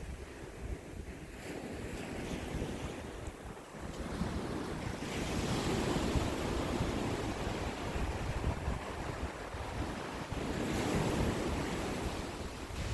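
Ocean waves washing onto the shore, surging up about five seconds in and again near eleven seconds, with wind rumbling on the microphone.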